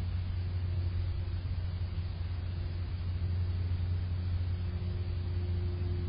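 Steady low rumble with no distinct events, a faint hum joining it in the second half.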